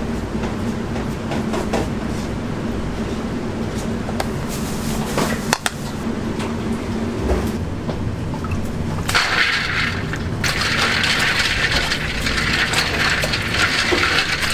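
A steady low kitchen hum, then about nine seconds in a tap starts running hard, water pouring into a stainless sink basin while cooked buckwheat noodles are rinsed by hand in a mesh strainer.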